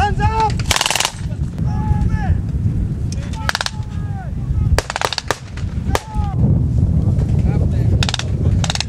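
Blank gunfire from WWII-style rifles and automatic weapons in a mock battle: sharp single shots and short rapid bursts, one about a second in and another about five seconds in. Men shout between the shots over a steady low rumble.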